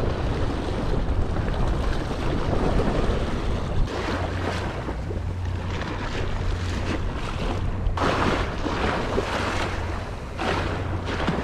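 Small sea waves washing against a rocky shore, with wind rumbling on the microphone; the wash swells up a couple of times near the end.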